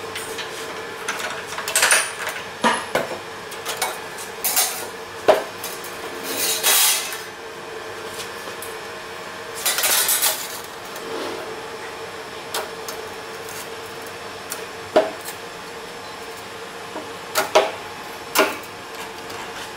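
Steel band saw blade strip being handled on a blade clamping and grinding machine: scattered metallic clanks and rattles, with a few longer scraping sounds about 2, 7 and 10 seconds in. A faint steady machine hum runs underneath.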